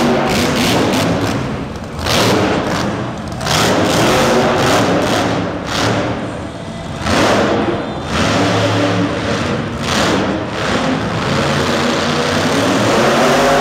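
Higher Education school-bus monster truck's engine revving hard in repeated surges, the throttle opening and closing with short dips between.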